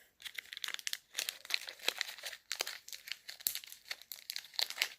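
Packaging of moldable foam clay crinkling and rustling in quick, irregular crackles as it is worked open.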